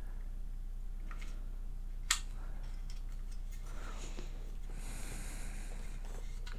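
Hard plastic model-kit parts handled and pressed together: one sharp click about two seconds in and a brief rustle of plastic near five seconds, over a steady low electrical hum.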